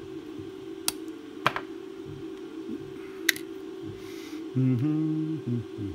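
Small flush cutters snipping a plastic pin header strip: three sharp snaps, about a second in, a second and a half in and just past three seconds, over a faint steady hum. Near the end a brief low hummed voice tone is the loudest sound.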